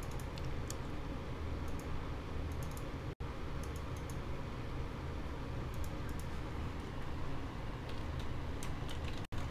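Computer mouse clicks and keyboard key presses: scattered clicks at first, then a quick run of typing near the end, over a steady low hum.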